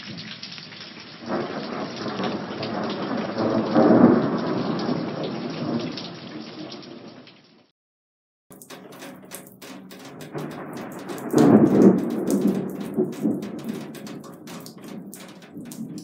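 Two separate recordings of thunder, split by a brief silent gap. Each is a low rolling rumble that swells to a loud peak and fades away: the first peaks about four seconds in, the second near twelve seconds. The second carries many sharp taps over the rumble, with rain falling.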